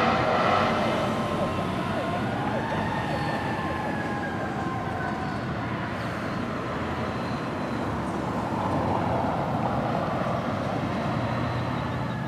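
Fire engine sirens wailing as a 2010 Ferrara Ember pumper drives away on a call, fading a little, with one tone slowly falling in pitch.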